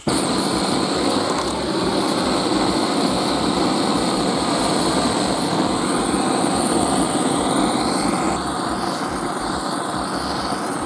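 Gas-cartridge blowtorch flaring up as it is lit, then burning with a steady loud hiss as its flame heats an aluminium engine crankcase.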